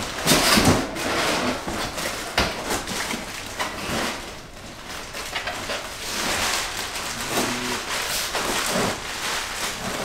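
Cardboard and packing material rustling and scraping as a long cardboard shipping tube is pulled out of a cardboard box, with a few knocks of the tube against the box.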